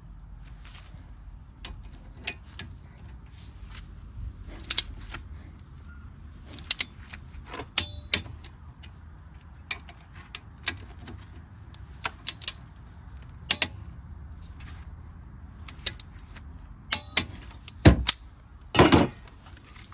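Hand tools clicking and clinking against metal while the brake caliper bolts are tightened down, scattered sharp clicks with a short metallic ring now and then. A heavier knock and a brief clatter near the end.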